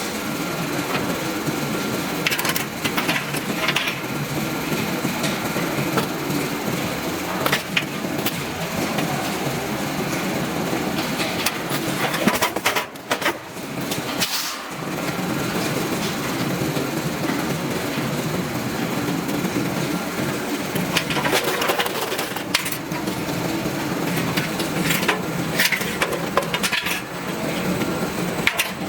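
Circuit-board disassembly machine running, with a steady mechanical rattle and many sharp cracks and clicks of boards and parts being broken up. The noise drops briefly about thirteen seconds in.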